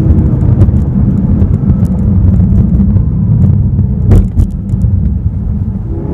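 2015 BMW M6 Gran Coupe's 4.4-litre twin-turbo V8 engine and exhaust running loudly as the car is driven: a steady low rumble, with one short knock about four seconds in.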